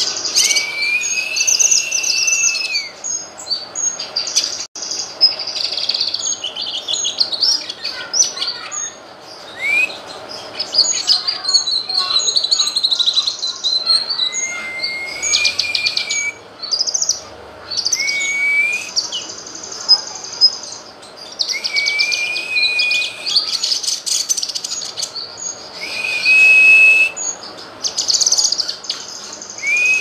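Cucak kinoy (blue-masked leafbird) singing a fast, varied song of high chirps and trills. Every few seconds a long whistle breaks in, rising and then holding its pitch.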